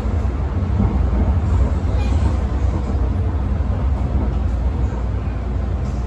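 Steady low rumble of an MTR Island Line M-Train running through the tunnel, heard from inside the carriage.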